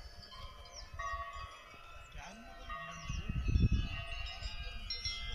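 Many chimes ringing together, their overlapping tones hanging on at several pitches, with wind buffeting the microphone in gusts, strongest about three and a half seconds in.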